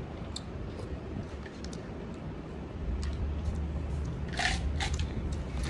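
A metal spoon clicking and scraping in a paper cup as a child eats, with two louder sharp knocks near the end. A low steady rumble comes in about halfway through.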